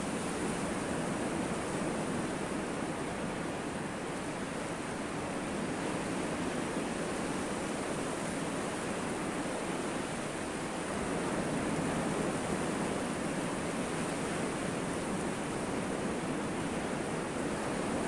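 Mediterranean surf breaking and washing onto a sandy beach: a steady rush of noise with no distinct events, a little louder from about eleven seconds in.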